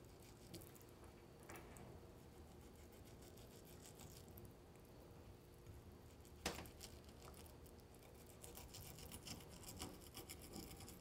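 Faint scraping of a kitchen knife blade working along a sea bream fillet and the wooden cutting board as the skin is cut away from the flesh. There is one sharp knock about six and a half seconds in, then a run of small quick scraping strokes near the end.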